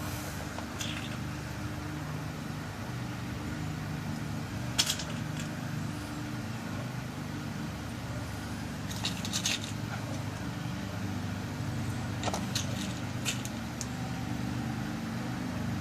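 Small, sharp metal clicks and taps as tiny brass lock pins are dropped and set into a pin-tumbler lock cylinder during rekeying, a few single clicks and a quick cluster near the middle, over a steady low hum.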